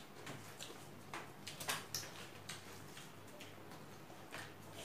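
Eating sounds: irregular wet clicks and smacks of chewing and of bare hands mixing rice on plates.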